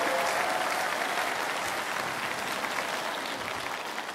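Large audience applauding, the clapping gradually dying away.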